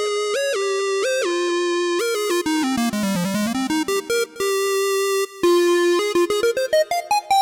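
A bright synthesizer patch on a digital keyboard workstation, played as a fast single-note melody: a run sweeps down about two seconds in and climbs back up, a note is held in the middle, and quick short notes follow near the end.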